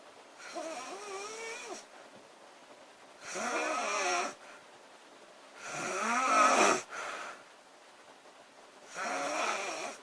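A woman snoring loudly in her sleep: four snores about three seconds apart, each a pitched, wavering rattle lasting around a second, the third the loudest.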